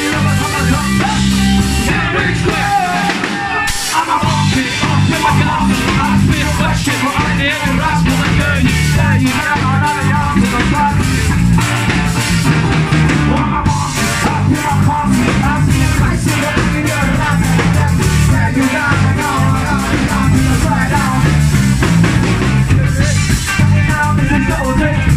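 Ska-punk band playing live: drum kit, guitar and trombone with singing. The bass and drums drop out briefly about three seconds in, then the full band comes back.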